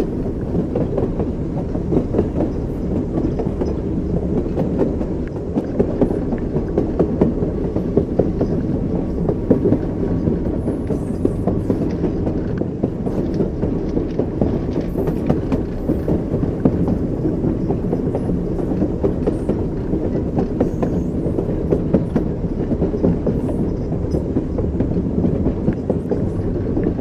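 Train wheels clacking over rail joints: a steady low rumble with repeated knocks from the wheels.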